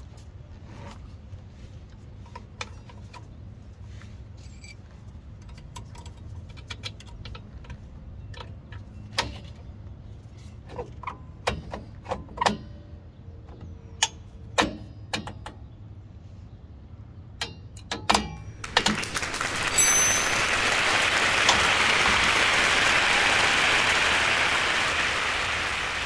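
Light metallic clinks and clicks of drum brake shoes, return springs and hardware being handled and fitted by hand. About two-thirds of the way in, a loud, even rushing noise swells up, holds for several seconds and fades out near the end.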